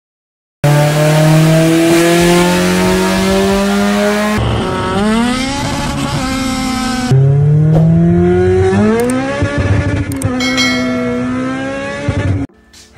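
Honda four-cylinder engine accelerating hard, heard from inside the cabin: the engine pitch climbs, drops at each gear change and climbs again. Several short clips are spliced together with abrupt cuts, and the sound stops suddenly near the end.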